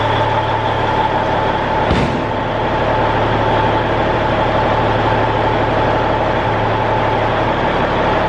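Semi truck's diesel engine idling steadily just after a cold start, with one brief click about two seconds in.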